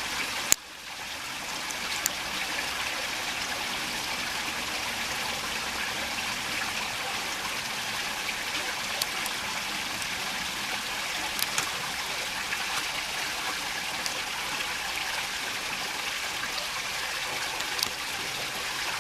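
Creek water running and trickling steadily, with a few sharp faint clicks over it.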